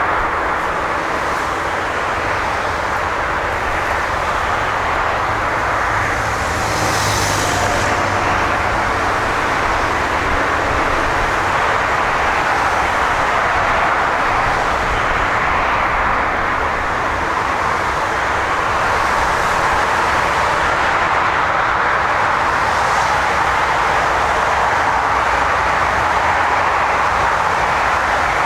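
Jet airliner engines running, a steady, even roar with no breaks.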